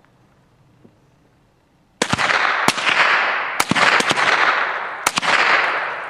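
.22 rimfire rifle firing a rapid string of about six shots, starting about two seconds in, with echo rolling on and fading after the shots.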